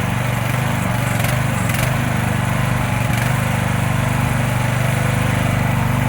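Small engine of a compact mini excavator or skid steer running steadily at an even speed.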